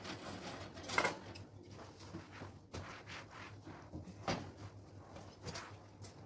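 Bird cage and its parts being handled during cleaning: several separate knocks and scrapes of the cage, the loudest about a second in.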